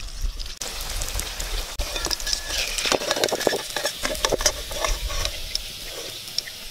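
Chicken strips sizzling and crackling in hot oil in a steel wok, starting about half a second in. A perforated steel skimmer clicks and scrapes against the wok in the middle as the fried pieces are lifted out.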